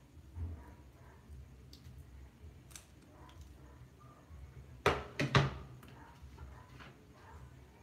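Three quick, sharp knocks or thuds about five seconds in, over a faint low hum, with a softer thump just after the start.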